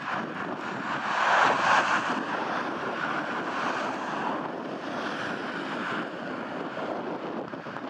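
Road traffic passing: a steady rush of tyres and engines that swells about a second in, then eases off gradually.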